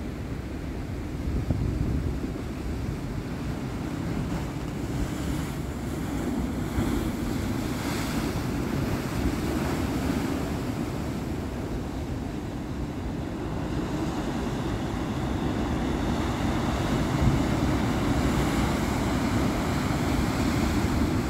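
Ocean surf surging into a rocky gully and breaking against the cliffs in a continuous wash of foam, swelling and easing, louder in the last few seconds as a bigger wave breaks.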